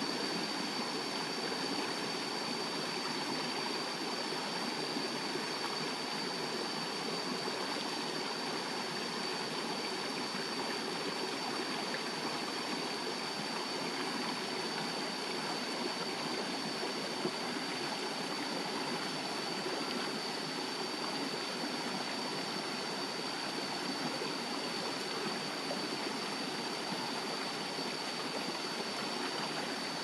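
Shallow rocky stream rushing and splashing over stones in a steady flow, with a steady high-pitched whine above it.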